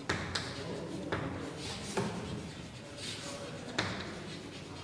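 Chalk writing on a blackboard: irregular sharp taps as the chalk strikes the board, with light scraping strokes between them.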